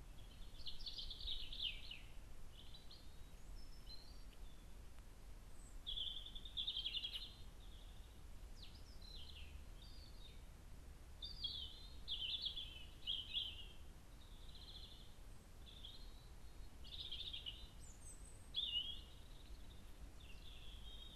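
Wild songbirds singing, a string of short high phrases every second or so, over a steady low rumble.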